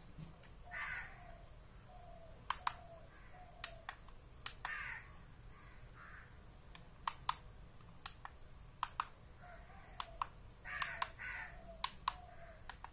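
Plastic push-buttons on the top of a mirror-faced LED digital alarm clock clicking as they are pressed, a dozen or so sharp clicks, several in quick pairs, while its settings are stepped through. Harsh bird calls sound in the background a few times.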